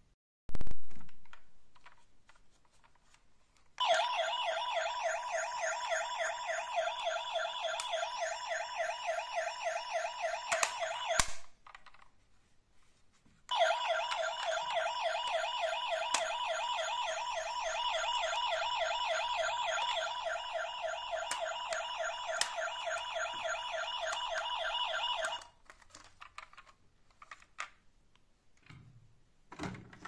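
Toy emergency vehicle's electronic siren sounding twice, a fast repeating warble, the first run about seven seconds long and the second about twelve. A single sharp knock comes near the start, before the siren.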